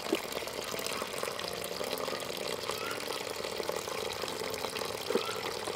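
Knife slicing lengthwise through a peeled raw green papaya on a woven bamboo tray, a wet cutting sound with a short click at the start and another near the end, over a steady background hiss.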